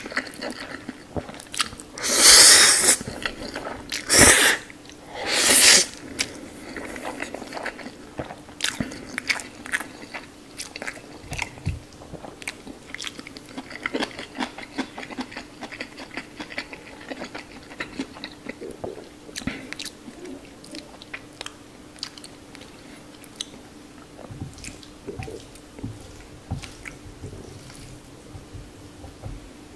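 Close-up mouth sounds of a person eating instant ramen noodles: three loud slurps in the first six seconds, then steady chewing with many small wet smacks and clicks.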